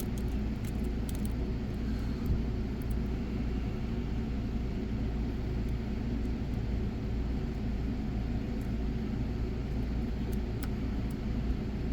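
A steady low rumble or hum of background noise, with a few faint ticks from a lock pick working the pins of a padlock near the start and again later on.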